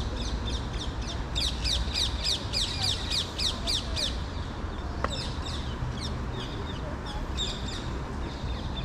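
Bird calls: a rapid series of high, sharp, falling notes, about four a second, in two bouts with a short gap between, over a low steady rumble.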